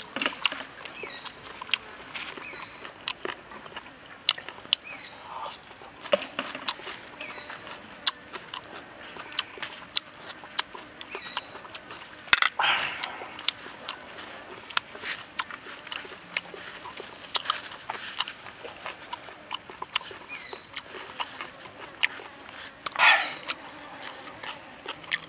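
Close-up eating sounds: chewing and lip smacks with many sharp clicks, and two louder rasping bursts, one about halfway and one near the end. Short high chirps of a bird repeat in the background.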